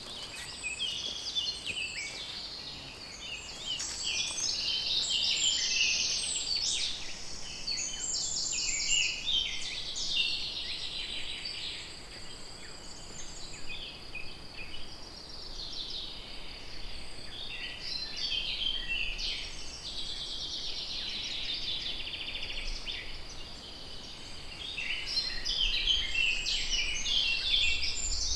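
Many songbirds singing at once, a dense overlapping chorus of chirps, trills and whistles.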